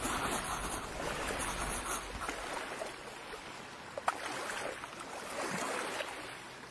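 Small sea waves washing onto a sandy shore, a steady hiss of surf that slowly fades, with one brief click about four seconds in.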